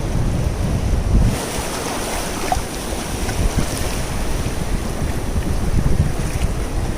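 Wind buffeting the microphone over the steady wash of sea surf on a beach; the hiss of the breaking waves grows stronger about a second in.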